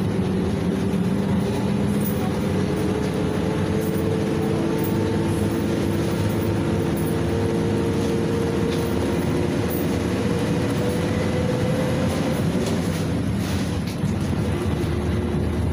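PAZ 32054 bus heard from inside while under way: its ZMZ-5234 V8 petrol engine and drivetrain running over steady road rumble, with a whine that rises slowly in pitch for about twelve seconds and then drops away.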